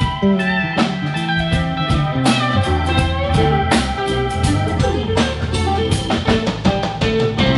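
A live rock band playing: electric guitars, bass and keyboard over a steady drum-kit beat.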